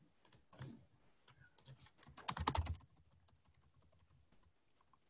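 Typing on a computer keyboard: a run of quick key clicks through the first three seconds, loudest in a dense flurry just before the three-second mark, then only a few faint clicks.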